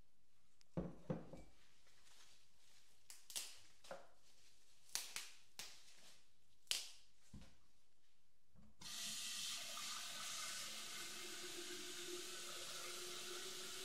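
A few light knocks as sunflower stems and a stoneware crock are handled on a kitchen counter. About nine seconds in, a kitchen tap is turned on and water runs steadily into the stoneware crock, filling it.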